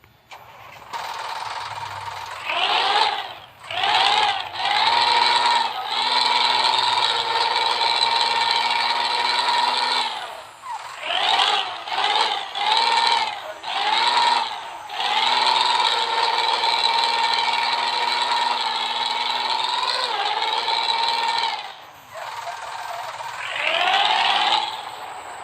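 Diesel engine of a front-engined Hino AK8 bus revving in a series of bursts, with the rough snoring 'ngorok' note. Several bursts climb quickly in pitch and then hold steady, and a run of short blips comes in the middle.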